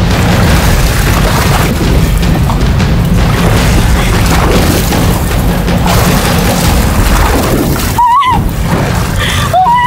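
Strong wind buffeting the microphone: a loud, continuous, choppy rumble with a rushing hiss over it. Near the end a short pitched cry rises and falls.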